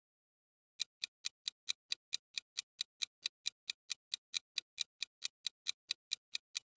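Quiz countdown-timer sound effect: steady clock-like ticking at about five ticks a second, starting just under a second in.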